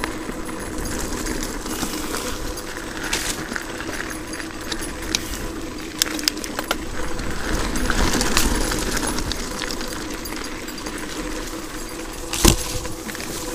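A 27.5-inch mountain bike rolling fast over a dirt and gravel trail: steady tyre noise with the bike rattling and clicking over bumps, a cluster of sharp clicks around the middle, and one hard knock near the end.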